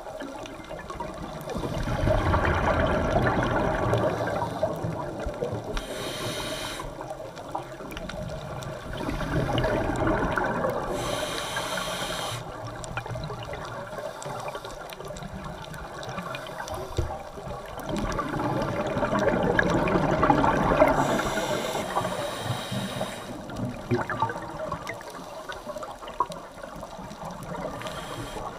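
Scuba diver breathing through a regulator underwater: slow cycles of exhaled bubbles rushing out, about every eight seconds, with a short high hiss of inhaled air between them.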